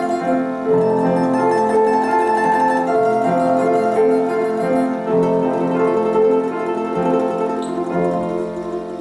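Domra playing a slow, lyrical melody with piano accompaniment. The music grows quieter near the end.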